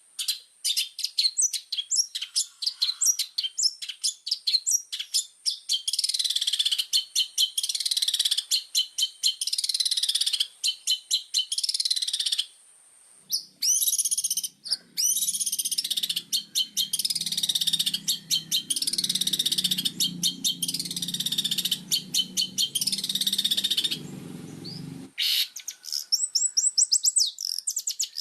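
Long-tailed shrike (cendet) in full song: long, fast, chattering runs of high, sliding notes with one short break a little before halfway. A fainter low continuous sound lies underneath from about halfway until a few seconds before the end.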